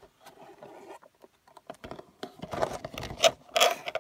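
Cardboard toy box being handled and turned over by hand, with short scrapes and taps against the hands and table. It is quiet at first and gets busier and louder in the second half.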